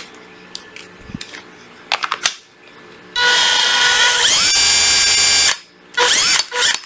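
Panasonic EZ7442 cordless drill driver with a four-brush motor, run with no load as a function test. A few clicks come first. About three seconds in, the motor starts with a whine that climbs in pitch as it speeds up, holds steady for about a second and stops. Near the end it is run again in short bursts.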